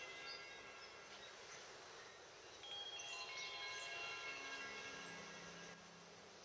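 Soft chime tones at several pitches, each ringing on for about a second and overlapping one another, with a few faint high bird chirps.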